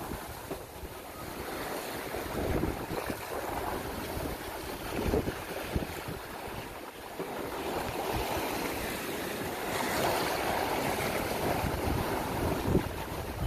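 Storm wind buffeting the microphone over the rushing wash of water along the hull of a heeled sailing yacht pushing through rough seas. The water rush swells louder a little past the middle.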